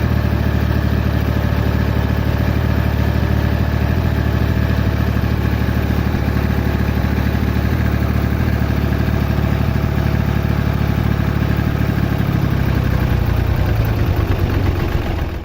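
Small engine running steadily at a constant speed, with a rapid, even pulsing, as on a homemade mini tractor.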